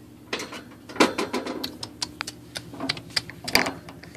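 Irregular clicks and light rattles of a wire guinea pig cage as a hand reaches in through it, with the loudest click about a second in.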